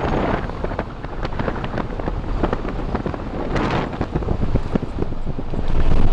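Vehicle rolling along a gravel road: a low rumble with a dense crackle of tyres on loose gravel and wind buffeting the microphone, growing louder near the end.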